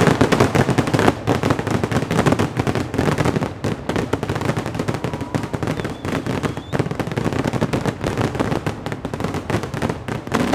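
Fireworks display: a dense, continuous barrage of rapid bangs and crackles.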